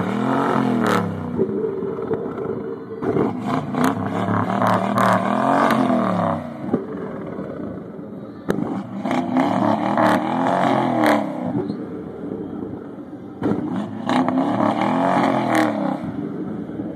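Lincoln engine revved hard about four times, each rev rising and falling in pitch. Sharp pops and bangs come from the exhaust as it shoots flames.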